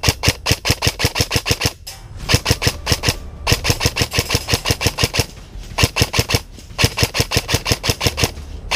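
Airsoft rifles firing full-auto: five rapid bursts of sharp cracking shots with short pauses between them, then one last single shot near the end.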